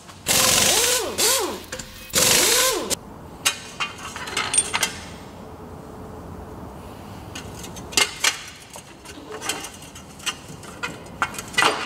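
Impact gun hammering in two bursts, about a second and a half and then well under a second, undoing the bolts of a wheel hub bearing assembly on a steering knuckle. Scattered light metal clicks and clinks follow as the tools and parts are handled.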